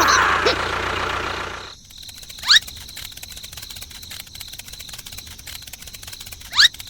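A loud noisy sound cuts off about two seconds in, leaving an outdoor animal chorus. It is a fast, even ticking with a thin steady high tone, and twice a short, sharply rising chirp rings out loudly.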